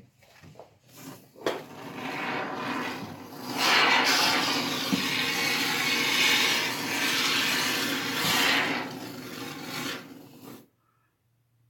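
Can of expanding foam spraying through its nozzle tube: a steady hiss that starts about a second and a half in, is loudest through the middle and cuts off shortly before the end.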